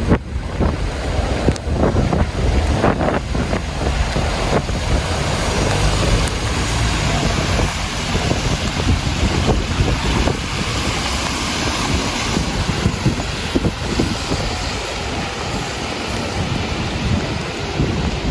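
Wind buffeting the camera's microphone: a loud, steady rumble and rush.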